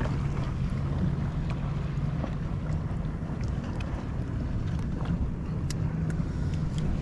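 A boat motor running steadily with a low, even hum, with wind noise on the microphone over it.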